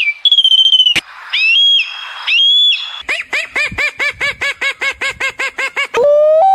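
Several different wild bird and animal calls edited back to back: a steady high whistle, then two whistled notes that rise and level off, then a fast run of repeated calls about five a second, and near the end a steady lower-pitched call.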